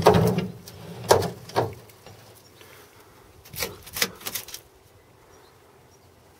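Several sharp knocks and clunks from hands handling the steel boot opening and boot-lid stay of a Triumph Spitfire Mk4 body: a few in the first two seconds, then a short cluster about four seconds in.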